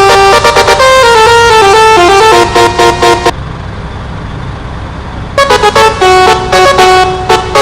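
Telolet horn, a multi-trumpet musical horn on a truck, playing a tune in quick stepped notes. It stops about three seconds in, leaving a low rumble for about two seconds, then starts the tune again.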